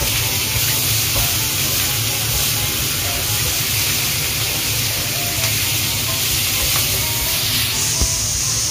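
Sliced pork sizzling steadily as it stir-fries in a hot frying pan over a gas flame, turned with chopsticks.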